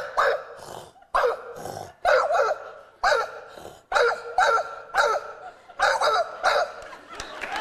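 A woman imitating a young female Irish wolfhound barking with her own voice: a string of short, sharp barks, often in quick pairs.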